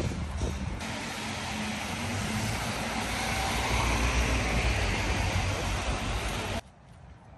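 Road traffic on a rain-wet road: cars and vans passing, with engine hum and tyre hiss on the wet tarmac. The noise stops suddenly near the end.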